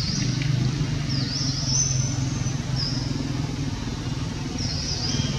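A steady low motor hum, like a vehicle engine running, with repeated short, high, swooping chirps over it.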